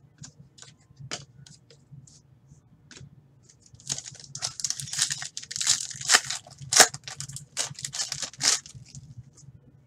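A foil trading-card pack being torn open and crinkled: a dense run of crackling rustles from about four seconds in until near the end. Before that, light clicks and taps as cards are handled.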